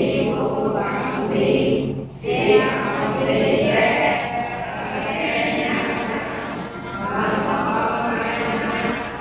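Many voices chanting together in unison, a Buddhist devotional recitation, with a short pause between phrases about two seconds in.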